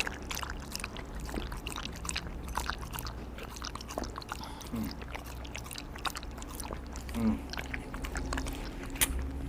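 A corgi drinking from a bowl of cold water with ice: quick, irregular wet clicks of lapping and mouthing at the bowl.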